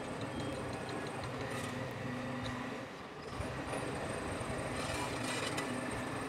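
A motor running steadily with a low, even drone, dipping slightly about three seconds in, with a few faint clicks.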